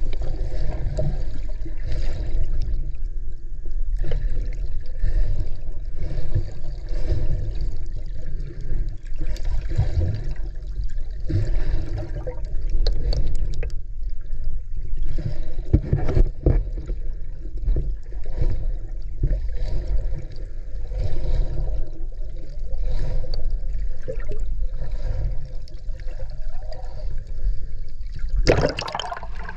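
Muffled water sloshing and bubbling picked up by a camera underwater, mostly a low rumble with scattered crackles. About a second before the end, a louder, brighter rush of water comes in.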